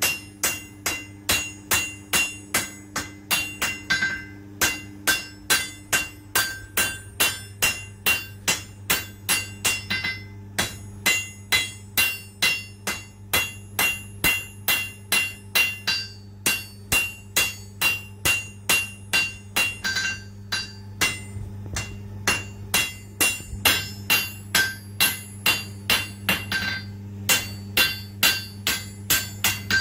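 Hand hammer forging a red-hot steel knife blade on an anvil: regular ringing blows about two to three a second, in runs broken by short pauses. A steady low hum runs underneath.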